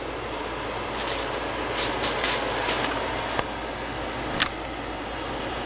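A steady hiss of room or fan noise with a few short crinkles and clicks scattered through it, from the plastic wrap over a bowl of fried chicken livers being handled.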